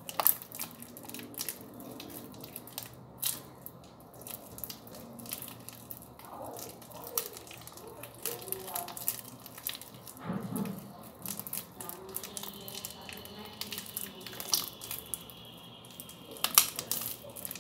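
Hands kneading and squeezing a wet cornstarch slime, giving a run of small sticky crackles and squelches.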